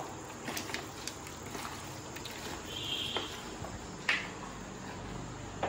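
Hands squishing and turning chicken pieces in a wet yogurt-and-spice marinade in a plastic bowl: soft squelching with small scattered clicks, and one sharper click about four seconds in.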